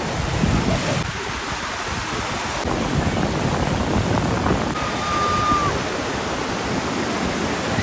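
Ocean surf washing in, mixed with wind buffeting the microphone: a steady, full rushing noise. About five seconds in, a brief thin whistle-like tone sounds once and dips slightly as it ends.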